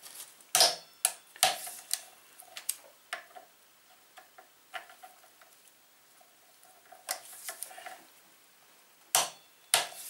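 Small click-type torque wrench ratcheting on the front-axle pinch bolts of a Kawasaki Z1000 as they are tightened to their final 20 newton metres: sharp separate clicks in clusters, with a quieter stretch of faint ticks in the middle.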